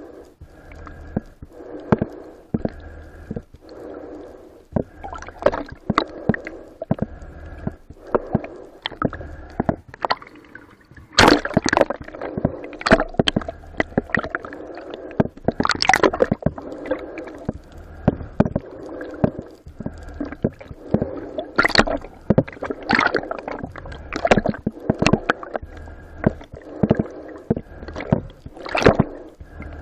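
Water sloshing and gurgling close to the microphone, broken by many sharp clicks and knocks, the loudest in clusters about eleven, sixteen, twenty-two and twenty-nine seconds in.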